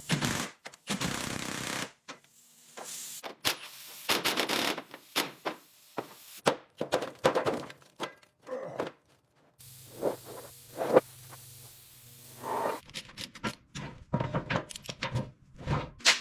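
Workshop clatter: a run of knocks, thunks and scrapes, as of hand tools and metal parts being handled. It comes in short pieces with brief drop-outs between them, and a low steady hum runs under the middle stretch.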